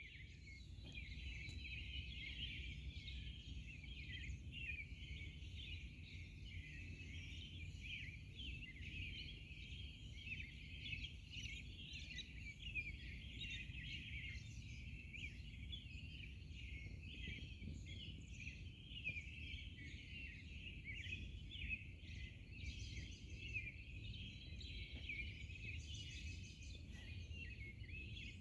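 Morning chorus of many small songbirds, a dense, continuous mix of chirps and short song phrases, over a low steady rumble.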